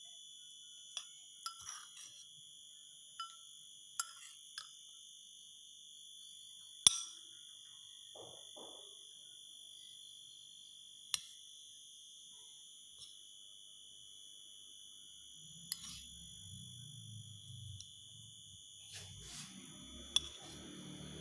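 A metal spoon clinks against the food bowl several times as a rice, carrot and meat meal is stirred. The loudest clink comes about seven seconds in. A steady high-pitched whine runs underneath, and a low rumble joins in the last few seconds.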